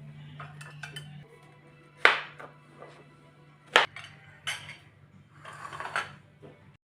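Dishes and kitchen utensils clinking and knocking as they are handled: two sharp clinks about two and four seconds in, then a few softer knocks, over a steady low hum. The sound cuts off suddenly near the end.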